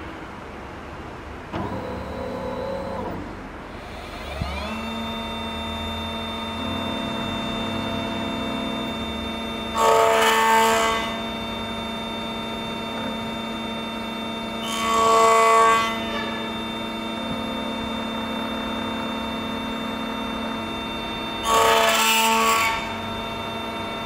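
Beta key cutting machine working an FO21 Tibbe key. About four and a half seconds in, its cutter motor spins up with a rising whine and settles into a steady hum. Three times, each for about a second, the cutter bites into the metal key with a louder grinding rasp.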